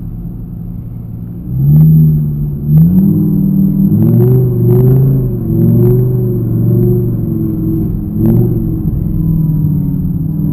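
Audi R8's 5.2-litre V10, heard from inside the cabin, revving up sharply about one and a half seconds in and again near three seconds, then rising and falling in pitch through the middle as the car is driven hard, and running steadier at lower revs near the end. A few short sharp knocks cut through it.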